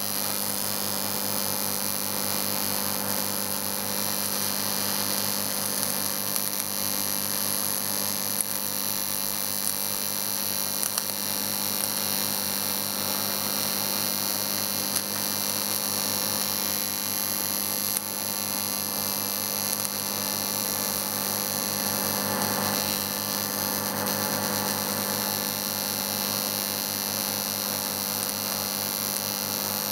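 TIG welding arc burning steadily: an even electrical buzz with a hiss above it, broken by a few faint crackles.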